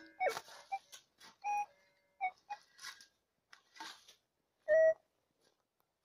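Metal detector giving a series of short beeps of varying pitch as it is swept over buried metal targets, the longest and loudest about three-quarters of the way through. A few brief rustling sounds come between the beeps.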